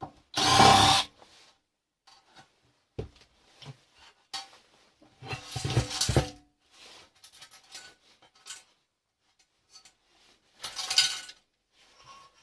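Hand dismantling of scrap electronics with hand tools: bouts of scraping and clattering as parts are worked loose and handled, the loudest about half a second in, another around six seconds and a third near the end, with small clicks and knocks between.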